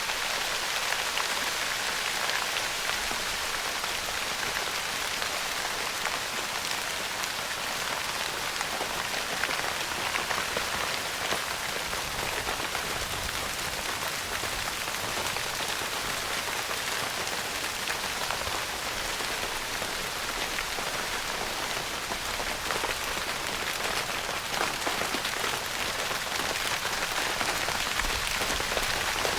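Steady rain pattering on a tent's fabric roof: a continuous hiss of many close drop taps.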